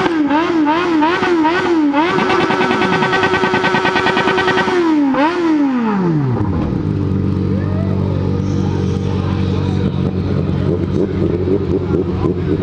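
A car alarm siren wails up and down about three times a second, switches to a fast steady warble, then drops in pitch and cuts off about six seconds in. A sport motorcycle's inline-four engine then idles steadily. The alarm was set off by the motorcycles' loud exhaust.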